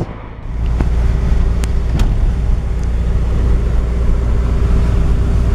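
Car driving along a wet road, heard from inside the cabin: a steady low rumble of engine and tyres with a faint steady hum. A few light clicks come in the first couple of seconds.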